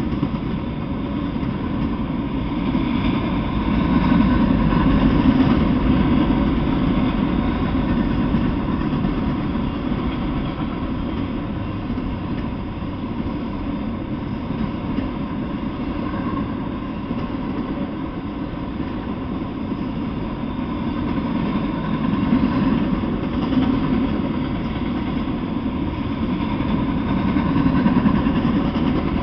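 Freight train of autorack cars rolling past on the rails: a steady rumble of wheels and cars that swells and eases in waves as the train goes by.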